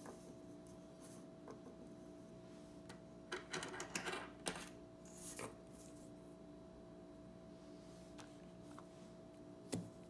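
Mechanical pencils being handled and laid on a table: a quick cluster of light plastic-and-metal clicks and taps a little past three seconds in, a softer one just after, and a single sharp tap near the end, over a faint steady room hum.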